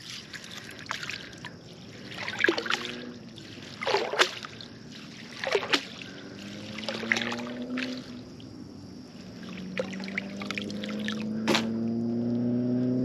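Water splashing and dripping from a dip net being worked in shallow water and lifted out, with a handful of sharp splashes. From about halfway a low droning hum rises slowly in pitch and grows louder.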